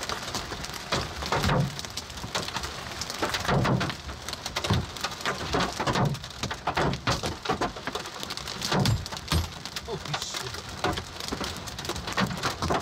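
Large hailstones and heavy rain hitting a car's roof and windshield, heard from inside the car: an irregular stream of hard knocks, some of them loud, over a steady hiss of rain.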